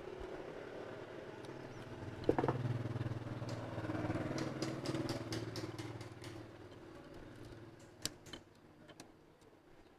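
A motorbike engine running in the street, growing louder about two seconds in and slowly fading away. Over it come light scattered clicks of copper magnet wire being worked into the slots of an electric motor stator, with two sharper clicks near the end.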